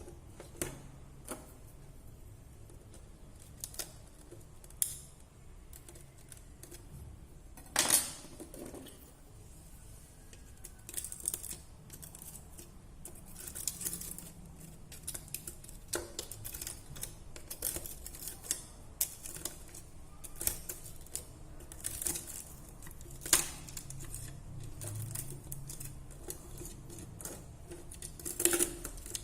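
Irregular small clicks and taps, with a louder knock about eight seconds in and two more later on.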